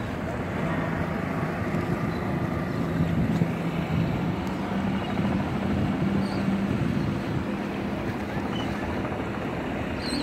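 Boat engines running with a steady low hum, over a constant rush of wind on the microphone.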